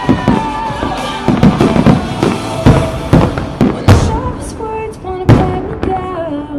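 Aerial fireworks shells bursting in quick, uneven succession, about ten sharp bangs, the loudest about four and five seconds in. Music plays over loudspeakers underneath, with a held, gliding melody line.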